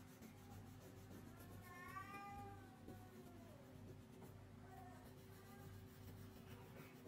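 A faint, drawn-out animal call that rises and then falls in pitch, starting about a second in and lasting over a second, with a shorter, fainter call near five seconds, over a steady low hum.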